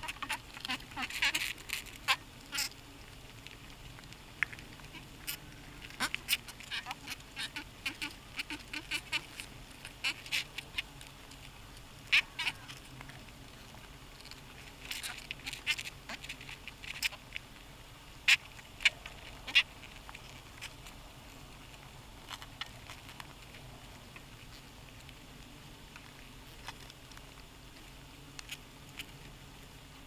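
Heterotrigona itama stingless bees moving about inside the hive close to the microphone: irregular sharp clicks and brief crackles over a faint low hum. The clicks come in busy clusters and thin out over the last third.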